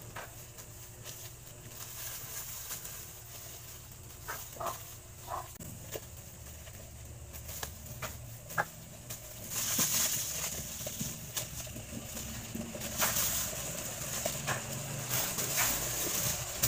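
Quiet cutting and handling of ripe mango: a knife slicing the flesh and the disposable plastic gloves rustling against the fruit, with faint clicks and a few short squeaks. The rustling grows louder from about halfway through.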